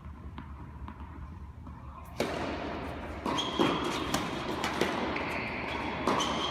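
Tennis ball bounced lightly on the court a few times before a serve, then sharp racket-on-ball hits of the serve and the rally, with short high squeaks. A steady noise comes in suddenly about two seconds in.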